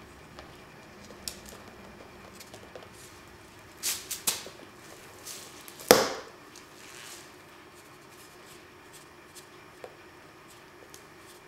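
Paint being flung and slapped onto a canvas with a stick: a few sharp splats and taps, the loudest about six seconds in, trailing off in a short swish, among faint scattered ticks.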